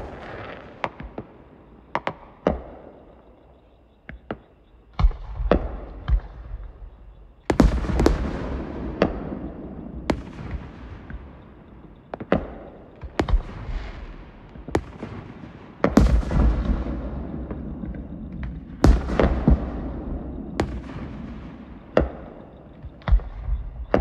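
Fireworks show: a steady run of sharp pops and bangs, with big deep shell bursts about 5, 7.5, 16 and 19 seconds in, each trailing off into a long crackling rumble.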